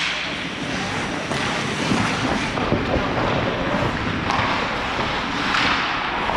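Ice hockey skates scraping and carving across a rink's ice, with a few sharp knocks near the start and two louder bursts of scraping about four and five and a half seconds in.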